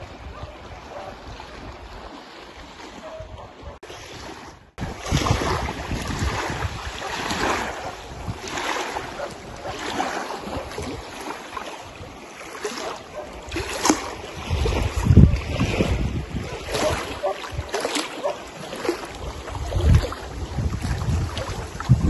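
Small waves lapping and splashing against a rocky lakeshore in washes every second or two, with gusts of wind buffeting the microphone. Quieter for the first few seconds, louder after about five seconds.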